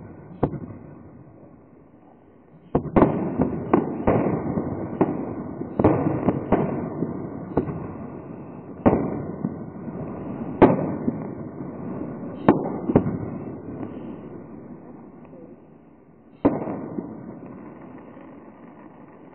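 Aerial firework shells bursting in the sky: about fifteen sharp bangs, each followed by an echoing rumble that dies away. Two come at the start, then a quick run of them from about three seconds in to about thirteen seconds, then one more near the end.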